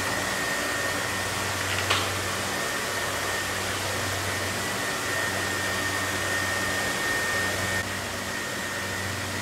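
Steady machine noise from an electric fan, with a low hum and a thin high whine that cuts off near the end; a single sharp knock comes about two seconds in.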